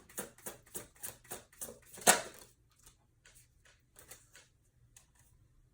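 A tarot deck being shuffled by hand: a run of quick card flicks, about four a second, ending in one louder slap about two seconds in, then a few faint card clicks.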